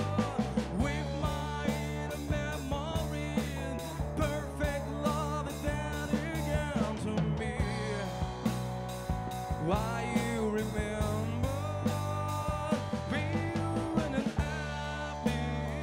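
Rock band playing live: a male lead vocal singing over drum kit with a steady beat, electric guitar and electric bass.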